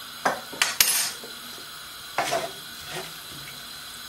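A spoon clinking sharply against a small ceramic salt pot several times in the first second and once more about two seconds in, as salt is added to rice in a pan, followed by a wooden spatula lightly knocking in a ceramic frying pan as the rice is stirred.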